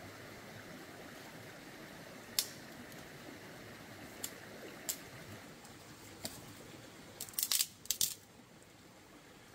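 Steady low rush of a small stream, broken by a few scattered sharp clicks and knocks and a quick run of clicks near the end.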